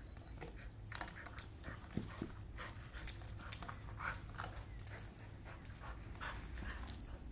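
Dog panting during play, with scattered short rustles and taps.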